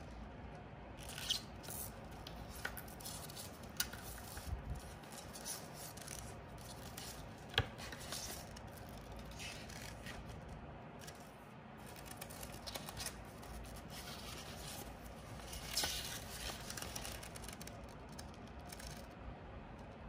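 Paper handling by gloved hands: the paper documentation envelope rustling and sliding as the iPad booklet is drawn out and opened, with soft rubbing and scattered sharp paper ticks, the sharpest about halfway through and a busier rustle a few seconds before the end.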